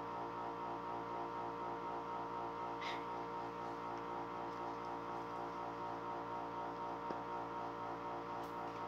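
Steady hum made of several held tones, with a fast flutter in the middle tones, and a faint short click about three seconds in.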